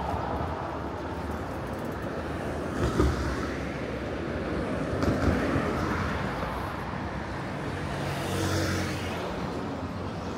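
City street traffic: a steady wash of passing cars and vehicles, with a short knock about three seconds in and a vehicle's low engine hum swelling near the end.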